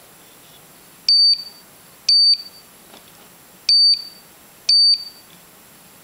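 Piezo alarm of a homemade ultrasonic sump pump controller sounding in test mode: four short high-pitched beeps in two pairs, the first about a second in, each ending in a brief ring-out. It is the alarm that signals a problem with the pumping system.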